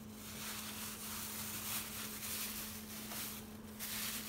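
Thin plastic bag rustling and crinkling as it is handled and opened by hand, over a steady low hum.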